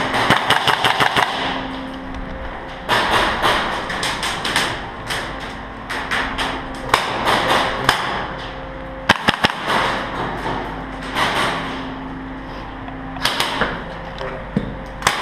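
Airsoft guns firing in repeated full-auto bursts of sharp cracks, about seven shots a second, broken by pauses of a second or two.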